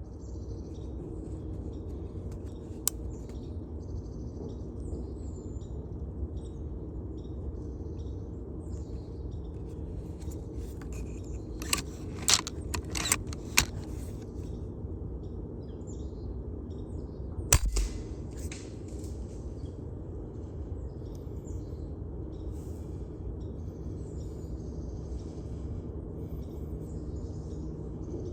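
Small birds chirping faintly and intermittently over a steady low outdoor rumble. A cluster of sharp clicks comes about halfway through, and one louder, sharper crack a little later.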